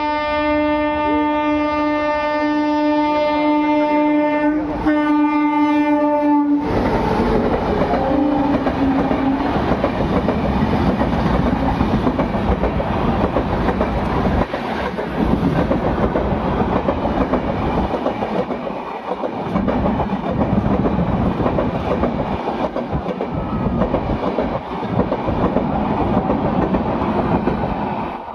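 WAP-7 electric locomotive's high-pitched horn sounding one long blast with a brief break near 5 s, then the express train running through at speed: the steady rumble and clickety-clack of its coaches over the rail joints.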